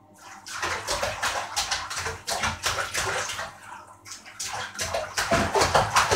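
Water splashing and sloshing in a bathtub in irregular bursts as a small child plays in the bath. It starts about half a second in and eases briefly around four seconds.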